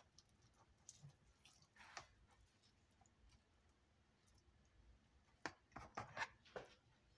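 Quiet, occasional scrapes and clicks of a knife and fork cutting into a roast chicken in a plastic tray, with a short cluster of sharper clicks near the end.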